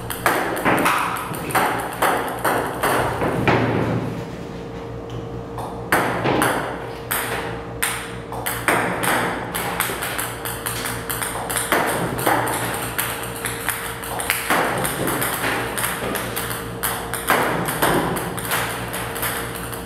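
Ping-pong balls fired by a table tennis robot, clicking and bouncing on the table one after another in a quick, uneven series of sharp taps.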